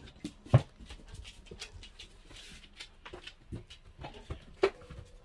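Golden retriever moving about on a wooden floor, its paws making scattered clicks and knocks, with two sharp thumps: one about half a second in and one near the end.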